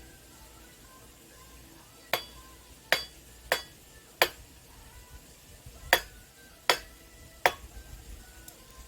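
Seven sharp clinks of hard objects striking, each ringing briefly, spaced irregularly over about five and a half seconds.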